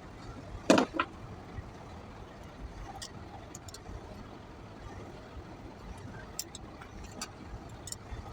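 A low steady background rumble, with a sharp knock just under a second in, a smaller one right after, and scattered light clicks later.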